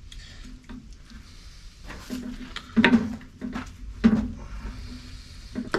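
Shears clipping through the joint and bone of an armadillo's leg: a few sharp snaps and clicks, the loudest about three and four seconds in.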